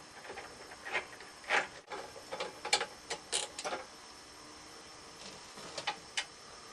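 3/8 wrench turning out a carburetor mounting bolt on a 5 hp Briggs & Stratton Quantum engine: scattered sharp metallic clicks and clinks, several close together in the middle, then a couple more near the end.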